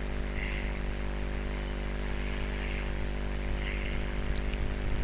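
Steady mains hum and buzz with a hiss on top, the electrical noise of the recording line, with no other sound.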